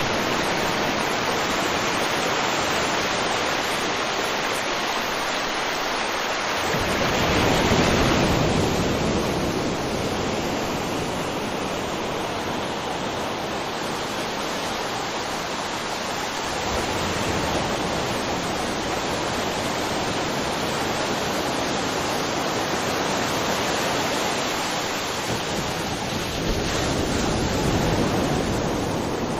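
River water flowing in a continuous rush, swelling louder twice: about a quarter of the way in and again near the end.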